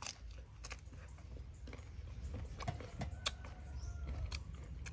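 A person chewing a crisp piece of mango: scattered small crunches and clicks over a steady low background rumble.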